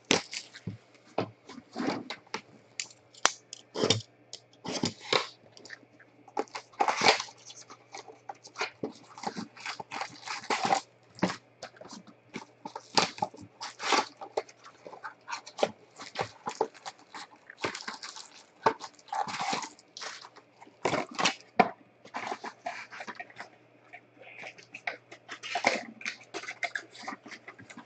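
Cellophane shrink wrap crinkling and tearing as it is stripped off a cardboard trading-card box, then the box flap opened and the foil packs handled: irregular crackles and rustles throughout.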